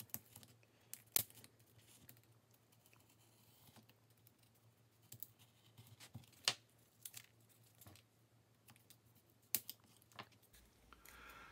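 X-Acto knife cutting a wing rib out of paper-faced foam board: faint scratching of the blade through the foam, with a few short sharp clicks spread through.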